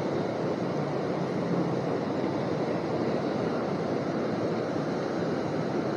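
Steady rush of flowing river water: an even hiss without breaks or distinct events.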